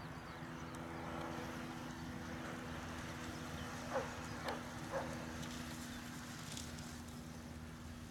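Steady motor hum, typical of a lure-coursing machine pulling the lure, with three short, high, falling yelps from excited dogs about four to five seconds in.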